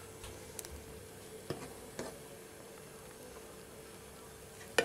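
Sambar boiling gently in a pan: faint bubbling under a steady low hum, with a few light clicks of the ladle against the pan and a sharper click at the end.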